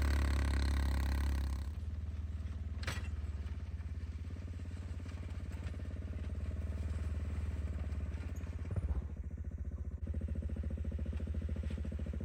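1992 Honda Fourtrax ATV's single-cylinder engine running under throttle, then easing off to a lower, steady chugging about a second and a half in. A single sharp knock comes near three seconds.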